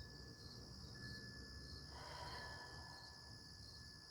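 Faint, steady insect chorus of crickets: a high continuous trill.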